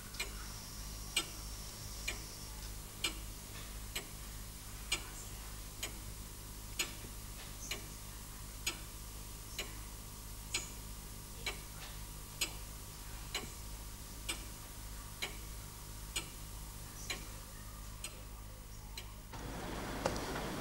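A clock ticking steadily, about one tick a second, over a low hum. Near the end the ticking stops and a louder, even background noise takes over.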